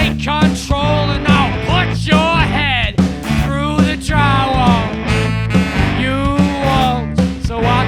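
A rock band with drums, bass guitar, electric guitar and saxophones playing a song. A gliding lead melody line runs over a steady, repeating bass and drum beat.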